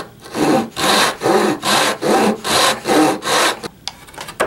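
Handsaw cutting through a small piece of wood in about seven quick, even strokes, roughly two a second. It stops shortly before the end, followed by a single sharp tap.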